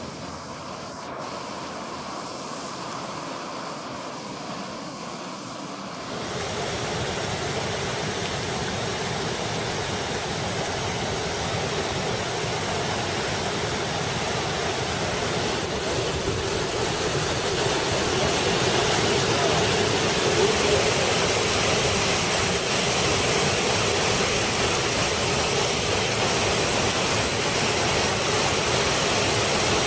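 Rushing floodwater, a steady noise that jumps suddenly louder about six seconds in and swells again past the midpoint.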